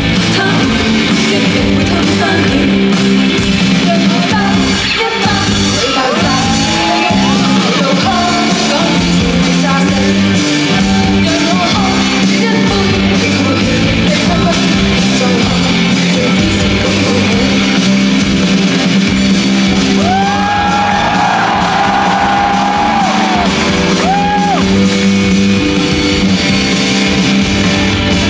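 Live band playing rock music in a large hall, with guitar and a singing voice; about twenty seconds in, a voice holds one long note.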